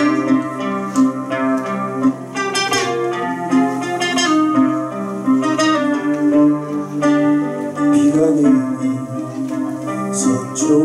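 Classical guitar played fingerstyle, a continuous run of plucked melody notes over a bass line.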